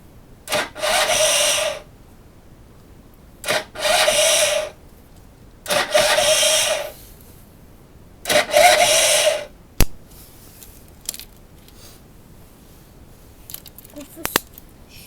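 Derbi GPR 50's 50cc two-stroke engine cranked over four times, each try lasting about a second with a steady rasp, and never catching: a non-starting engine. A sharp click follows the last try.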